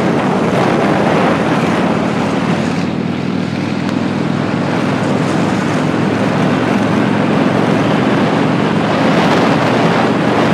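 Motorcycle engine running steadily at riding speed, under a heavy rush of wind on the microphone.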